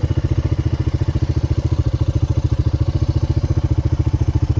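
Low, steady rumble of a car on the move, heard from inside, throbbing evenly about a dozen times a second.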